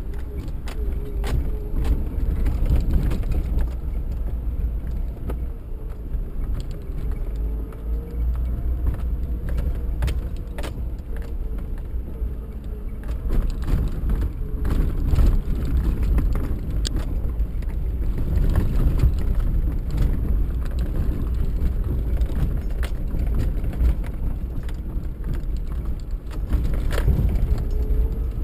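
Suzuki 4x4 driving along a rough dirt trail, heard from inside the cabin: a steady low rumble of engine and tyres, with frequent rattles and knocks as it goes over bumps.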